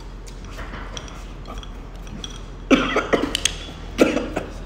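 A woman coughing in two short fits, the first about three seconds in and the second a moment later, with light clicks of chopsticks against a ceramic rice bowl before them.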